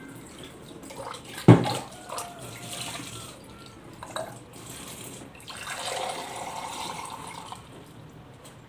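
Water running into a drinking glass, in two spells, the second with a steady ringing tone from the glass as it fills. A sharp knock of the glass being set down comes about a second and a half in.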